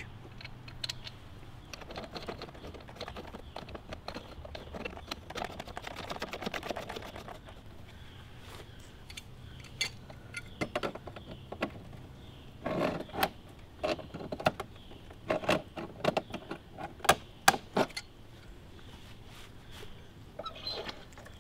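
Small metal clicks, clinks and scraping as a brass pressure gauge is handled and screwed by hand onto an outdoor hose bib. The clicks come at irregular intervals, a dense run of fine ticks first, then separate sharper taps.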